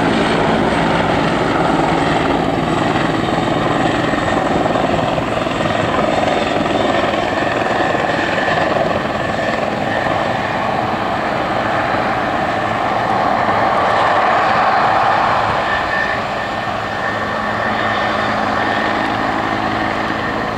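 Boeing 737-400's CFM56-3 turbofan engines running at taxi power: a steady jet roar with a thin whine now and then, easing slightly about sixteen seconds in.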